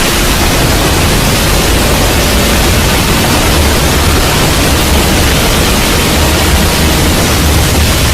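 Loud, steady static-like noise over a deep rumble, unbroken throughout.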